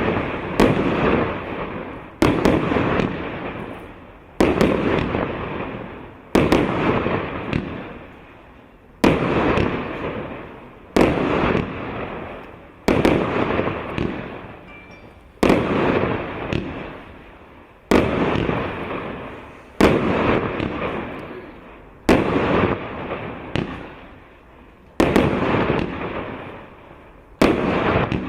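A 168-shot, 1.25-inch consumer firework cake firing: a sharp bang about every two seconds, each one trailing off in crackle and rumble before the next.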